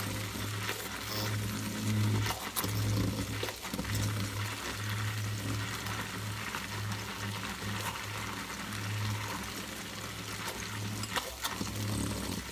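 Hand-held immersion blender (minipimer) running in short bursts, its motor hum cutting in and out as it purées artichokes, pasta water and cream cheese into a sauce. It stops near the end.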